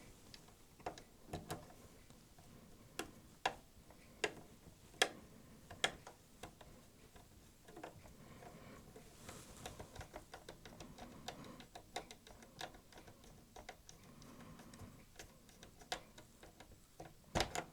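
Screwdriver driving a screw to fasten a refitted part in a VCR's mechanism: irregular small clicks and taps of metal and plastic, spaced about a second apart at first and coming more often in the middle.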